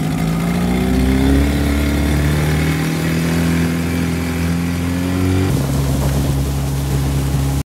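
A 40 hp outboard motor driving a boat under way. Its pitch climbs over the first couple of seconds as it speeds up, then holds steady, with a change in tone about five and a half seconds in. Wind and water noise run underneath.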